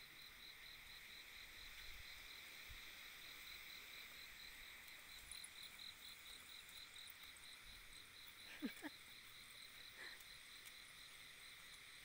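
Faint insect chirping: a steady pulsing trill at about five pulses a second. About two-thirds of the way in there is one brief squeak.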